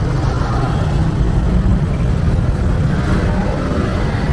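Busy street ambience: a steady rumble of motor traffic.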